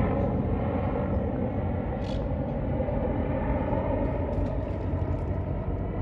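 Helicopter flying overhead: a steady drone of rotor and engine that slowly fades.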